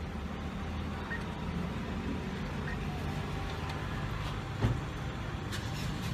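Steady low rumble of passing street traffic, with a single short thump about four and a half seconds in.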